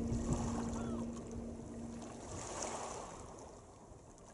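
Small waves lapping on the Solent shore, with a low steady hum that dies away after about two and a half seconds; the whole sound fades out gradually.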